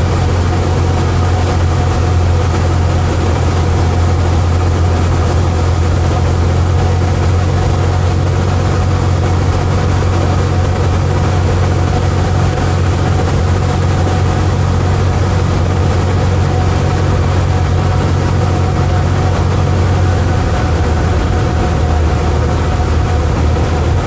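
Light aircraft's piston engine and propeller running steadily, a loud constant drone with a strong low hum.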